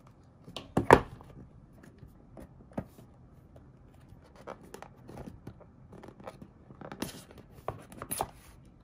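Hands handling a small cardboard product box: a sharp knock about a second in, then scattered light taps and scrapes, and two short rustling slides near the end as the box is worked open.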